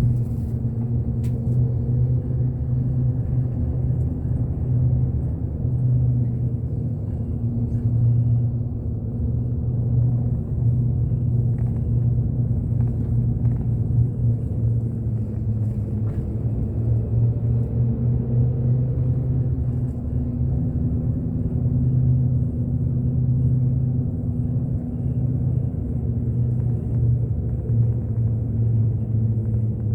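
A bus engine droning steadily with road rumble, heard from inside the moving bus.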